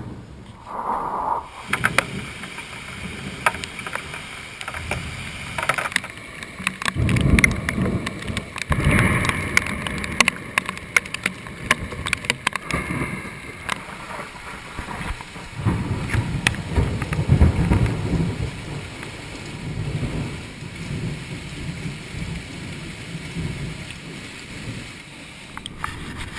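Thunder rumbling over a steady noisy background, with two louder low rolls about seven and sixteen seconds in, and many sharp clicks throughout.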